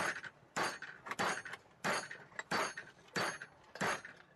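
Club hammer striking a metal piece clamped in a bench vise, bending its sides over to 90°. The blows come as a steady series of sharp strikes, a little under two a second, each with a short ring.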